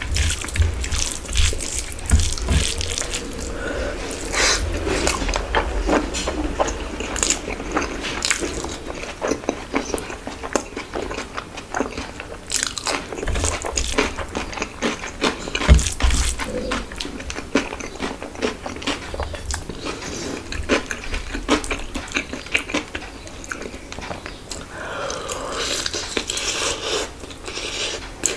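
Close-miked eating: wet chewing and lip smacks of khichuri eaten by hand, with soft squelches of fingers mixing the rice. Near the end, a bite into a chicken drumstick.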